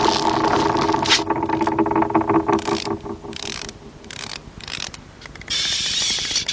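Ratcheting mechanical clicks and scrapes, a run of sharp clicks over a steady rushing noise with a low hum that fades as the clicks go on, thinning out until a steady hiss comes back in near the end.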